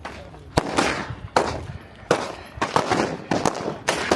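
Gunfire: about ten sharp gunshots at irregular intervals, several in quick succession, each trailed by an echo.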